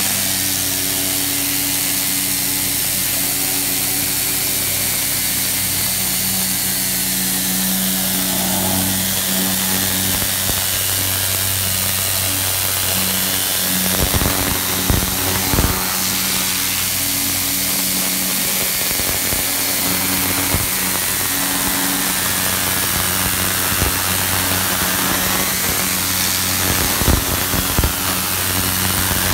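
Hotsy cold-water pressure washer running steadily: a loud continuous hiss of the turbo nozzle's jet blasting a metal wedge-wire screen, over the pump's steady hum. It briefly gets louder a few times, around the middle and near the end.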